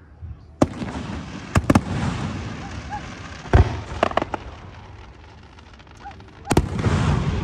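Aerial fireworks shells bursting overhead: a string of about seven sharp booms at uneven intervals, some in quick pairs, each followed by a rumbling echo.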